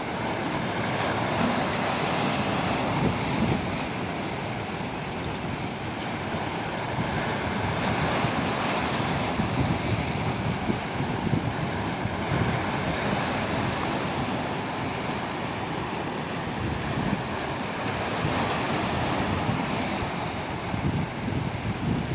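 Sea waves surging and washing ashore, rising and falling every several seconds, with wind rumbling on the microphone.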